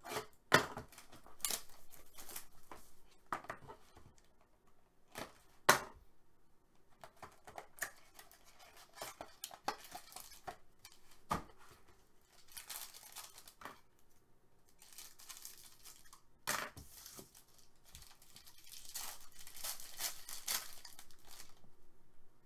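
A box cutter slitting open a sealed trading-card box, with sharp clicks and knocks as the box is handled on a table. From about halfway through, foil card packs are torn open and crinkled in several longer stretches.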